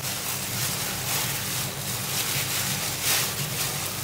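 Plastic-gloved hands kneading and squishing a soft mashed sweet potato and taro dough in a stainless steel pot, in irregular strokes, over a steady low hum.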